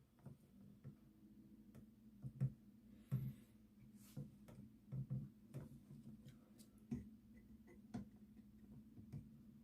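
Faint, irregular clicks and light knocks of a wall toggle switch and its wires being handled and pulled out of the electrical box, over a faint steady hum.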